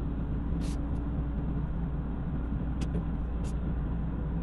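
Car running along a road, heard from inside: a steady low rumble of engine and tyre noise, with three brief clicks about a second in, near three seconds and at three and a half.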